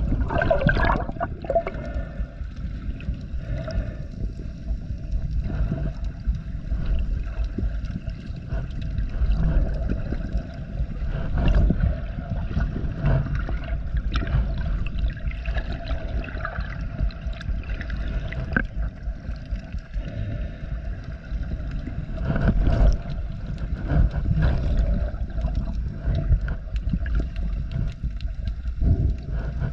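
Muffled underwater water noise picked up by a GoPro in its housing while snorkeling: a constant low rumble of moving water with bubbling and sloshing from the swimmer's strokes, several louder surges, and a steady hum underneath.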